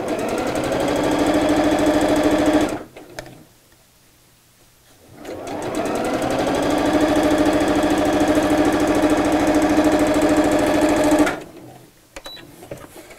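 Electric domestic sewing machine stitching down the centre of a zip tape through cotton fabric. It speeds up and runs for about three seconds, stops for a couple of seconds, then speeds up again and runs steadily for about six seconds before stopping.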